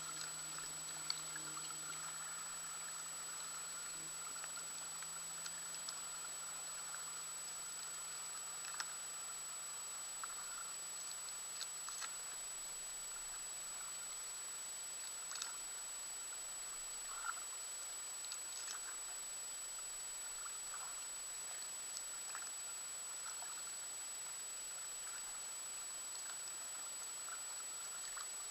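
Kayak paddle dipping into calm shallow water: quiet drips and small splashes scattered through a steady hiss, with a thin high steady whine. A faint low hum fades away in the first few seconds.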